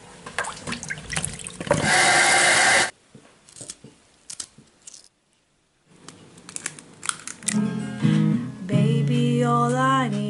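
Kitchen clatter with a second-long rush of running water over strawberries in a sink, then, from about halfway in, an acoustic guitar playing with a voice singing over it.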